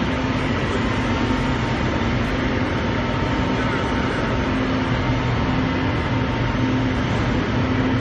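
Rotary continuous rice husk carbonization furnace and its blower fan running: a steady, loud machine drone with a constant low hum.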